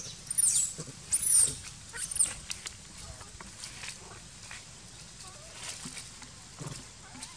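Baby macaque giving three loud, shrill squeals in quick succession in the first two and a half seconds, each rising and falling in pitch; after that only faint scattered rustles.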